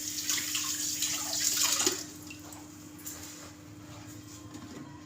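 Liquid trickling and splashing for about two seconds, then only a faint steady hum.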